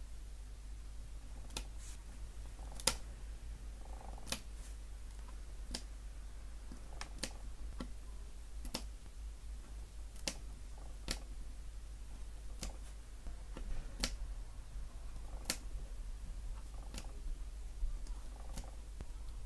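Hobby knife blade pressed through the small tabs that hold laser-cut paperboard parts in their sheet, one sharp click for each tab cut, a click every second or so. A steady low hum runs underneath.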